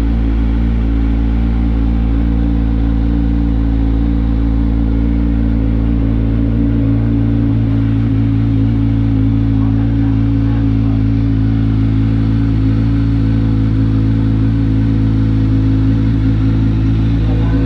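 Kawasaki Ninja 1000's inline-four engine idling steadily through a freshly fitted SC Project titanium exhaust, with a deep, even exhaust note and no revving.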